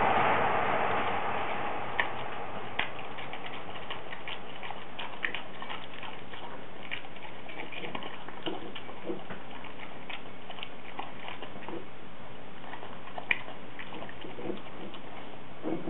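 French bulldog eating from a ceramic bowl: chewing, with irregular sharp clicks of teeth and food against the bowl, the loudest about 13 seconds in, over a steady hiss.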